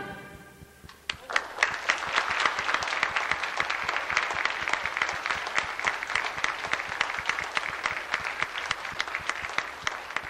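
A concert band's final chord fades away, and about a second in an audience breaks into steady applause, many hands clapping at once.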